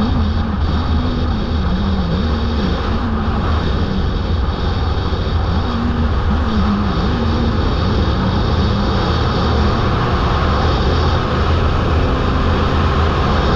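Kawasaki Ninja ZX-10R inline-four engine running at highway speed under heavy wind rush on the microphone. A low engine note wavers up and down through the steady roar.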